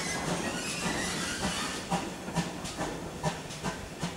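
GWR 4200 class 2-8-0T steam locomotive No 4247 working a train, its hiss fading early on. From about two seconds in come regular exhaust beats, roughly two to three a second, heard from a carriage window further back.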